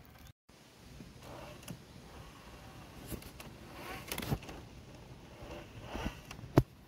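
Scale RC crawler truck (Traxxas TRX-4) driving over the forest floor: irregular rustling and crunching with scattered sharp clicks, the loudest click about six and a half seconds in, after a brief drop-out just after the start.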